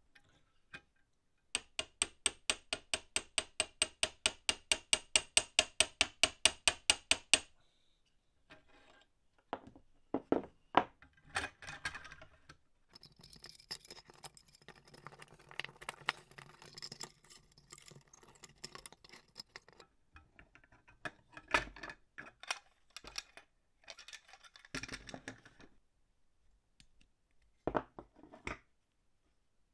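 Small brass and iron parts of an antique postage scale handled and worked apart by hand: irregular metallic clinks, clicks and rattles. Near the start there is a fast, even run of sharp clicks, about six a second, lasting some six seconds.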